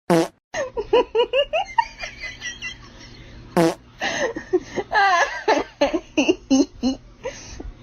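Two loud, fart-like blasts that fall sharply in pitch, one right at the start and one about three and a half seconds later, with laughter and giggling voices running between and after them.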